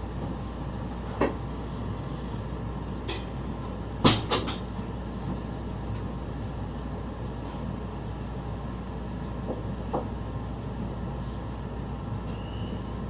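Steady running noise inside a moving passenger train's driver's cab, broken by a few sharp knocks and rattles, the loudest about four seconds in.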